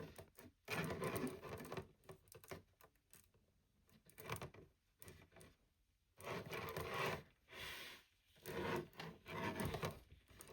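Playmates Scylla plastic action figure being handled, its jointed spider legs moved and set in place, in several short bursts of rubbing and scraping.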